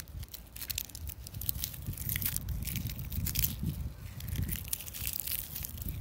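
Wind blowing through treetops: leaves rustle in many short crackles over a low rumble of wind on the microphone that swells and eases.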